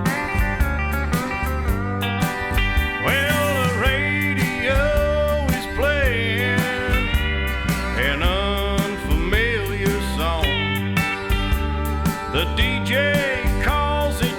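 Background country music: a steel guitar plays gliding, sliding lines over a band with a steady beat.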